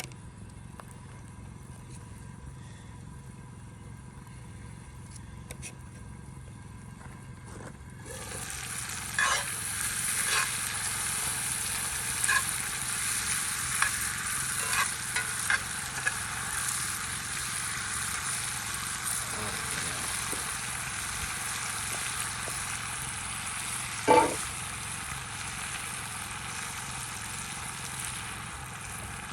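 Food frying in a pan over a campfire: a loud sizzle starts suddenly about eight seconds in and keeps going, with a utensil clicking and scraping against the pan and one louder knock later on.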